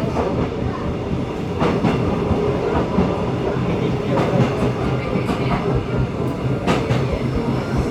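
V-train tourist train running along the track: a steady low rumble and hum of the wheels on the rails, with a couple of sharp rail clatters, one about two seconds in and one near the end.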